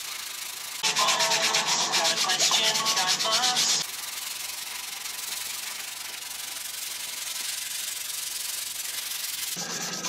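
Sandpaper being rubbed by hand along a Morado hardwood axe handle. A louder, fast stretch of rubbing strokes for about three seconds, then a softer, steady rubbing with fine-grit paper.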